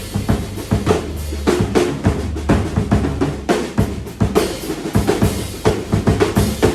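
1970s Ludwig stainless steel drum kit being played, with a quick, steady run of strikes on the 22-inch bass drum and the 1960s 6.5x14 Ludwig Supraphonic aluminium snare, the bass drum's low tone ringing between hits.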